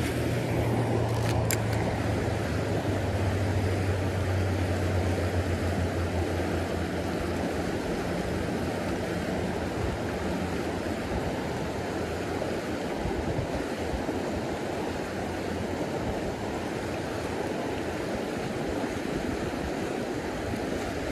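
Shallow creek rushing over rocks and riffles, a steady wash of running water. A low hum sits under it for the first several seconds.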